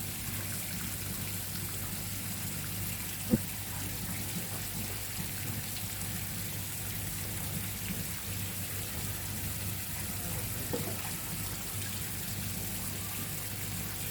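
Steady trickling, splashing water with a constant low hum underneath, and one sharp click about three seconds in.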